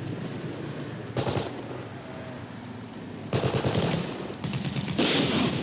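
Off-screen gunfire in a war-film soundtrack: a single sharp shot about a second in, then rapid bursts of machine-gun fire from about three seconds in, each trailing off in an echo.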